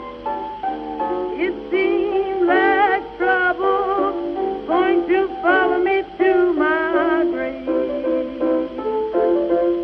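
Music from a slow song: sustained accompaniment with a lead melody line that wavers in pitch with heavy vibrato through most of the passage, easing off near the end.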